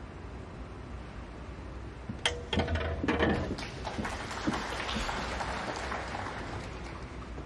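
Snooker shot: a sharp click of cue on ball about two seconds in, followed by a few quick ball-on-ball clicks as a colour is potted. Then a few seconds of audience applause that fades away.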